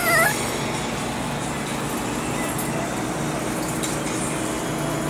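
Miniature Pinscher puppy giving one short wavering yip right at the start, then a steady background hum with no further calls.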